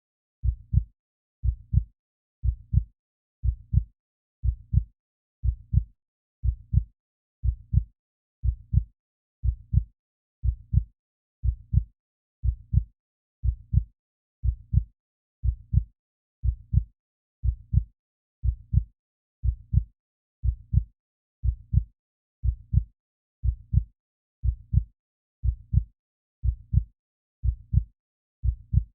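Heartbeat sound effect: steady lub-dub double thumps, low and deep, repeating evenly about once a second.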